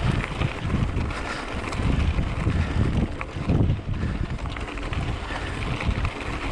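Wind buffeting a helmet or bike-mounted action camera's microphone while riding an e-bike up a rough trail, an uneven gusty rumble with scattered small clicks and rattles from the bike over rocky ground.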